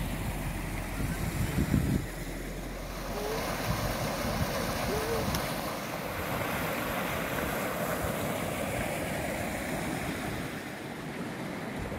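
Creek water rushing over a small cascade on granite rock, a steady rush. Wind buffets the microphone for the first two seconds.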